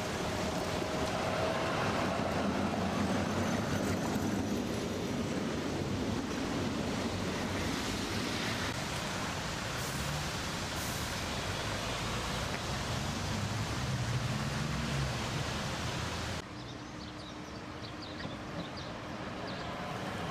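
Tram rolling along the rails: steady wheel and running-gear noise with a low motor hum, from a red Konstal 105N-series twin-car tram. The sound drops suddenly about three-quarters of the way in, and a second tram is heard approaching more quietly, its motors rising in a faint whine.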